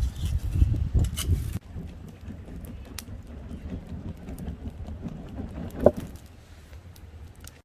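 Hardwood and charcoal fire crackling, with scattered sharp pops over a low rumbling noise. The rumble is louder for the first second and a half, and the loudest pop comes about six seconds in.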